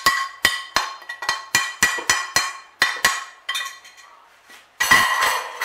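Rapid sharp taps on a ceramic plate, about three or four a second, each with a short ring, as ground spices are knocked off it into a cooking pot. The tapping fades out, and a louder clatter of dishware comes near the end.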